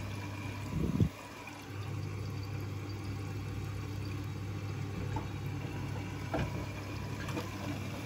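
Water splashing steadily into the drum of a Siemens front-loading washing machine as it fills, over a low hum. There is a short louder swell about a second in.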